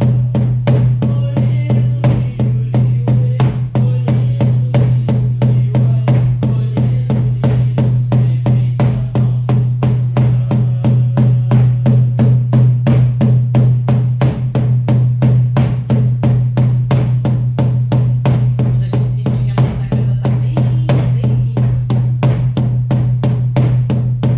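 Shamanic frame drums beaten in a steady, even pulse of about three beats a second, the repetitive rhythm of journey drumming, over a continuous low drone.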